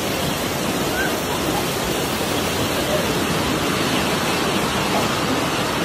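Heavy rain pouring down, a dense steady hiss with no letup.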